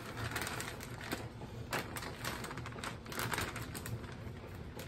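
Crinkling plastic bag of shredded mozzarella being shaken out over a casserole dish, with irregular clicks and rustles as the cheese falls.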